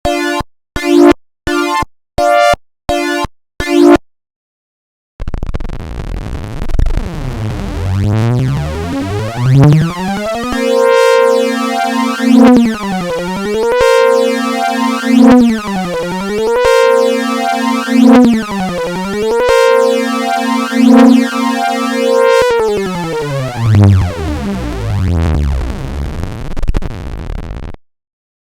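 Mock Emergency Alert System alarm made of synthesized tones: a quick run of short beeps, then after a brief gap a buzzy electronic tone that sweeps up from low, holds, and repeatedly dips down and back up in pitch like a siren before sliding back down and cutting off.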